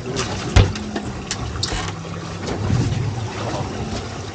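Boat sitting on open water: a steady low motor hum under the wash and splash of water, with a sharp knock about half a second in.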